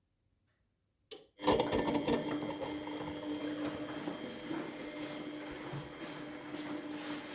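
Beko washing machine running, its drum and belt drive turning, with a squeak that began after the drive belt was replaced. The sound starts suddenly about a second and a half in with a few sharp high squeaks, then runs on steadily with a constant tone.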